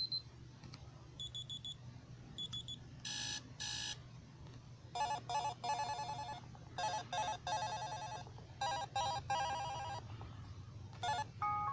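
Amazon Kindle Fire system sounds played one after another: a few short electronic beeps and chimes, then a fast trilling run of tones from about five to ten seconds in, and one more short burst near the end, over a low steady hum.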